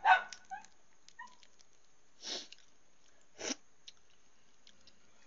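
Eating sounds of a person with a balut egg: a short loud mouth sound right at the start, faint clicks of eggshell being picked off by hand, and two short sniffs about two and three and a half seconds in.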